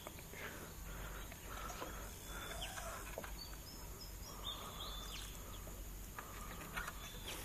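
Faint outdoor ambience with scattered short bird chirps and whistles over a low steady rumble.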